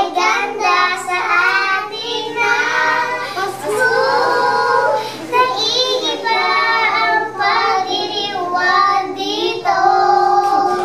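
A group of young children singing together in short phrases, ending on a held note.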